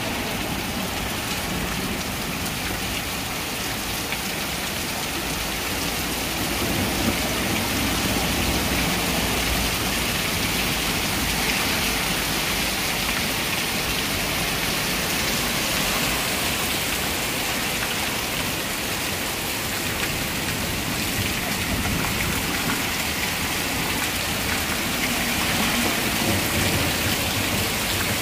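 Heavy rain falling steadily in a thunderstorm, a dense even hiss.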